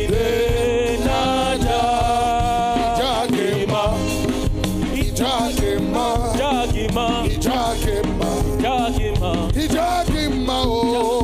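Gospel worship music with a voice singing over instrumental accompaniment.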